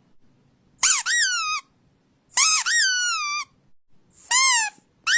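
Squeaky dog toy squeezed three times: three separate squeaks, each sliding up and then down in pitch.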